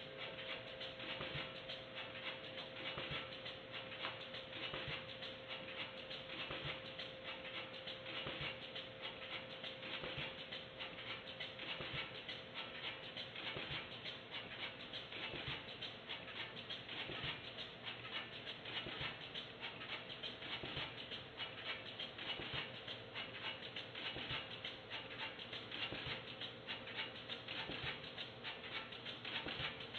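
Pouch converting machinery running, with a steady, rapid clattering and ticking of its moving parts. A faint steady hum fades out about a third of the way in.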